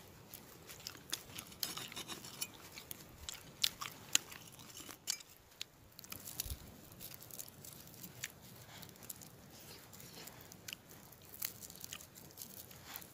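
Papery skins of garlic cloves crackling and snapping as they are peeled by hand close up, an irregular run of crisp clicks that is densest in the first few seconds.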